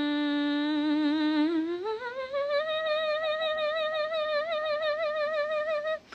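A woman humming with closed lips, kettle-like: one long note held steady, then sliding up about an octave around two seconds in and wavering there, before it cuts off suddenly near the end.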